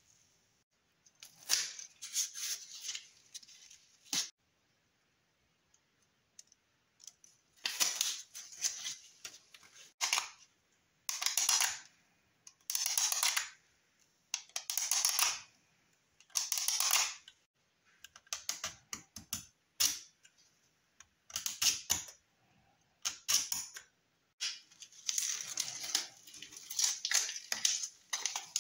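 Blue masking tape being handled, rubbed down and trimmed on a clear plastic car-window part with gloved hands: irregular short scratchy crinkling and rustling bursts, each about a second long, with brief pauses between.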